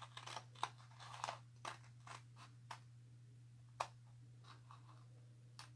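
Scissors snipping through a stencil transfer sheet: a string of short, crisp snips at irregular intervals, roughly one every half second to a second, over a faint low hum.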